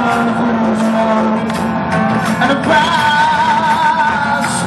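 A live band plays loudly while a male lead singer holds long notes into the microphone, one of them wavering with vibrato from a little past halfway.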